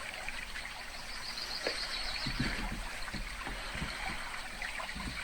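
A small stream babbling and trickling, a steady watery rush with little bubbling plops scattered through it.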